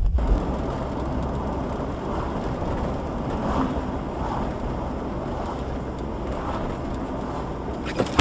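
Steady road and engine rumble inside a moving car, picked up by its dashcam, with a hiss of tyre and wind noise.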